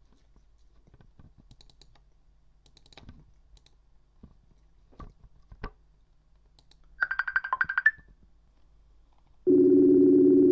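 A few faint clicks, then a short rapidly pulsing high chime about seven seconds in. About two seconds later a loud, steady outgoing-call ringing tone from a Facebook Messenger call starts and lasts about a second: the call is ringing the other party.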